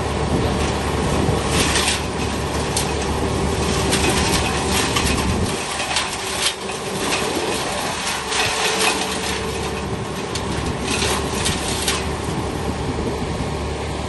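Bandit Model 250 wood chipper running steadily, with repeated crunching spells as fed branches are chewed up and blown out as chips.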